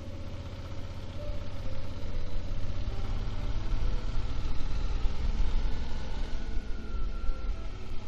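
Motorcycle engine running under way, with wind rumble on the helmet microphone; it grows louder about two seconds in.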